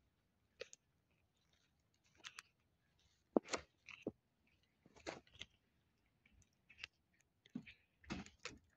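A cat chewing cooked chicken on the bone, with irregular sharp crunches and clicks, the loudest about three and a half seconds in.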